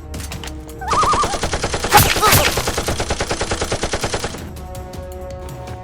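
Burst of rapid automatic gunfire sound effect, about ten shots a second for some three seconds starting about a second in, with two louder cracks near the middle.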